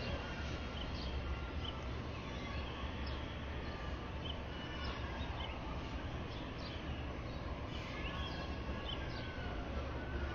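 Small birds chirping in short, scattered calls over a steady low rumble of open-air background noise.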